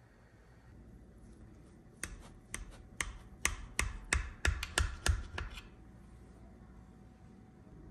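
Knife blade tapping and clicking against a ceramic baking dish as a syrup-soaked cake is cut into pieces: about a dozen sharp taps starting about two seconds in, some three a second, stopping after about three and a half seconds.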